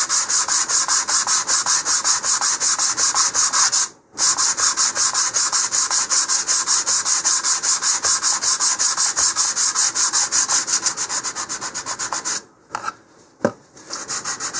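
Hand sanding with 150-grit sandpaper wrapped around an 18 mm rocket motor casing, rubbing down dried wood filler in a rocket's fin fillets in rapid, even back-and-forth strokes. The sanding breaks off briefly about four seconds in, stops near the end and then starts again.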